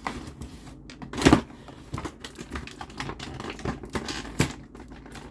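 Small plastic action figure and its accessories being handled: a string of light clicks and taps, with one louder knock about a second in.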